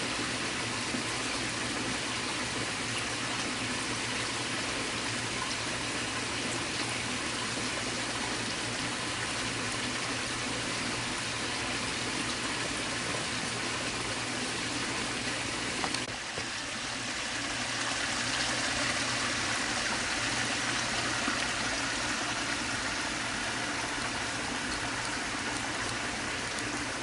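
Steady rushing noise, like running water, with a short click about sixteen seconds in after which the noise turns slightly brighter.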